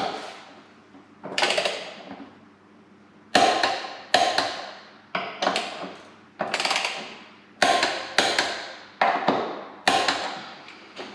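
Wrench and socket clicking and clanking on the 14mm control-arm bolts while they are torqued to 37 ft lb: a string of irregular sharp metallic clicks, each ringing briefly, coming every half second to two seconds.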